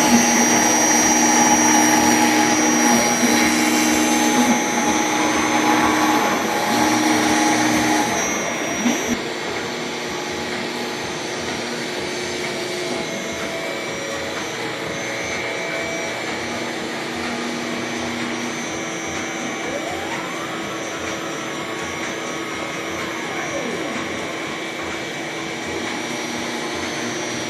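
CNC router running steadily as it cuts a part: the spindle whines continuously while the axis motors hum in short stop-start tones. About eight seconds in the cutting noise drops to a lower steady level, and later some motor tones rise and fall in pitch as the machine speeds up and slows down.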